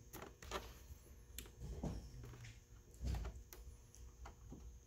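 Faint, scattered clicks and taps of hands working the hidden plastic body clips on the underside of an upside-down RC lowrider chassis.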